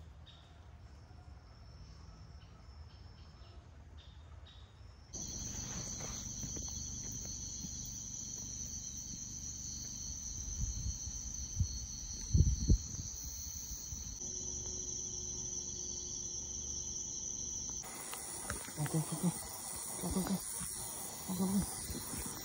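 Faint ambience at first, then night insects chirring steadily in high-pitched tones, the mix of tones changing abruptly twice. A few short, dull low thumps come in around the middle and again near the end.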